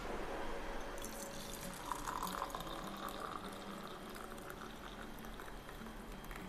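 Tea being poured, the liquid running in steadily from about a second in.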